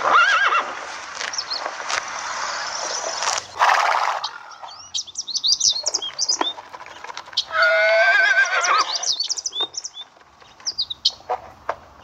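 A horse whinnies once, a quavering call about a second and a half long near the middle, with birds chirping around it. The first few seconds hold a steady rushing noise.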